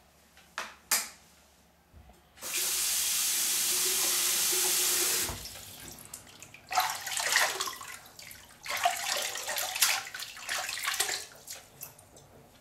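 Two sharp knocks, then a bathroom sink's mixer tap running in a steady rush for about three seconds that cuts off suddenly, followed by two bouts of hands splashing water in the basin.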